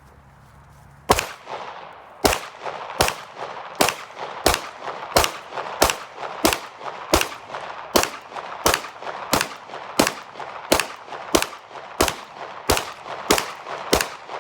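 Glock 17 9mm pistol fired in a steady string of about nineteen shots, roughly one and a half a second, each shot with a short echoing tail.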